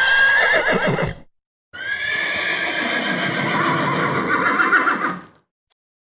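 Horse whinnying twice. A short whinny of about a second, then after a brief gap a longer, high, wavering one of about three and a half seconds that cuts off about five seconds in.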